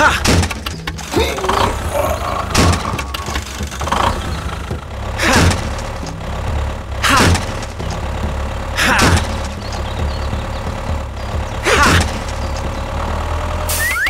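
Tractor engine idling with a low, steady hum. A short, sharp sound with a falling pitch cuts in about every two to three seconds.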